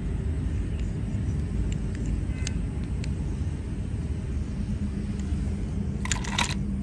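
Low, uneven rumble of wind on the microphone, with a few faint clicks, and a brief clatter of plastic toy cars in a plastic basket near the end.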